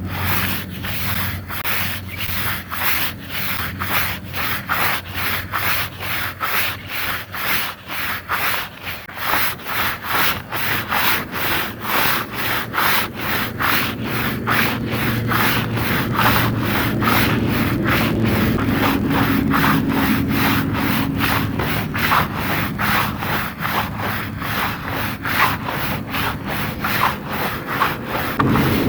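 Wet carpet being scrubbed in quick, even back-and-forth strokes, about two to three a second, with a steady low hum underneath.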